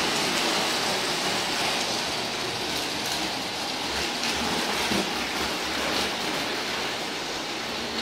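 Model electric train running around its metal track, a steady whirring rumble of motor and wheels on the rails with a few faint clicks.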